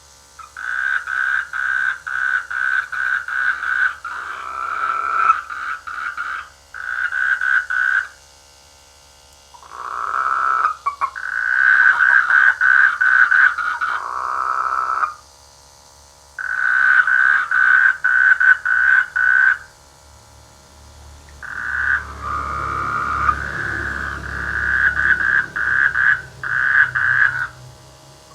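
Frogs croaking in bouts of rapid pulsed calls, several a second, each bout lasting a few seconds, with short pauses between: mating calls.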